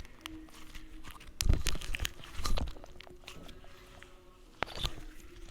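Freshly made PVA-glue slime being squeezed and stretched in the hands, giving short sticky handling noises in a few bursts: a cluster between about one and a half and three seconds in, and another near the end.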